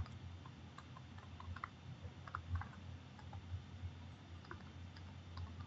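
Faint, scattered clicks and taps of a stylus on a tablet screen during handwriting, over a low steady hum.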